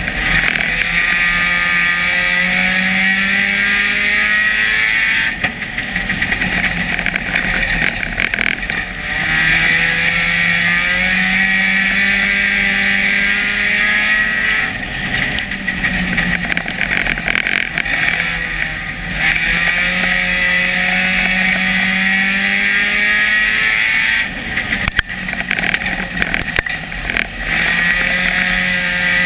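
Dirt-track stock car engine racing, heard from inside the cockpit: the pitch climbs under throttle along each straight and drops off as the driver lifts for the turns, over and over, with steady loud wind and road noise.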